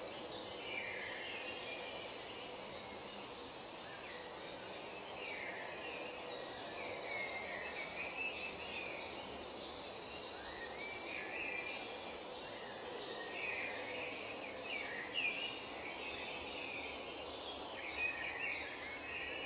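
Nature ambience: many birds chirping and calling on and off over a steady background hiss, with a couple of short, higher buzzing trills around a third and halfway through.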